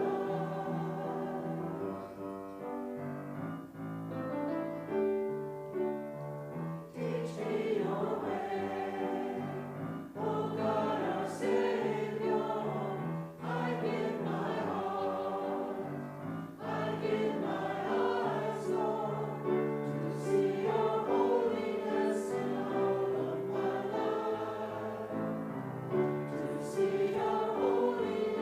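Congregation singing a hymn together, with instrumental accompaniment holding sustained low notes beneath the voices.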